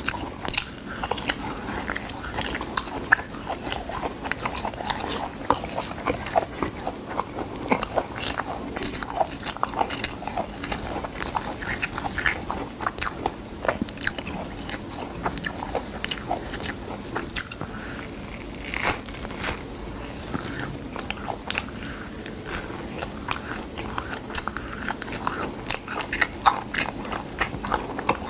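Chewing and crunching of dried gamtae seaweed sheets, with the brittle sheets crackling as they are torn by hand. A dense run of short, crisp crackles throughout.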